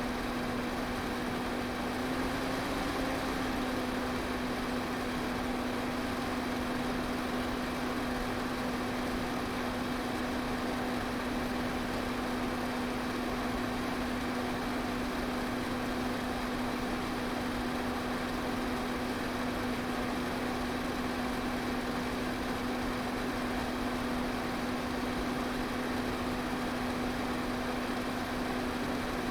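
Electric pedestal fan running steadily: a constant rush of air with a steady motor hum underneath.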